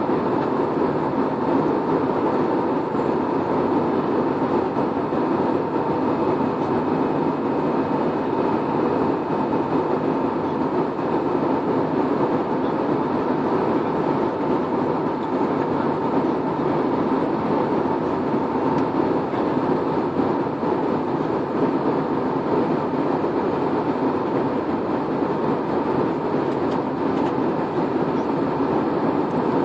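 Steady cabin noise of an airliner in flight: a constant rumble of engines and rushing air with a faint steady hum.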